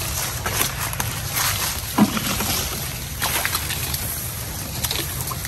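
Dry banana leaves and stalks rustling and crackling in irregular bursts as they are dragged aside by hand, with a single dull thump about two seconds in.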